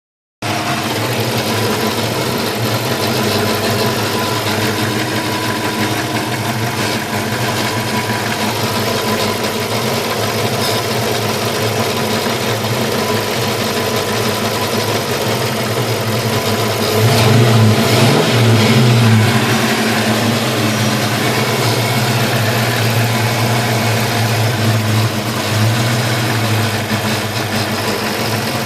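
1995 Ford Mustang GT's 5.0-litre V8 idling steadily, briefly louder a little past halfway. The engine has a miss, pops from the exhaust and makes a weird sound that the owner suspects comes from either the fuel pressure regulator or the PCV valve.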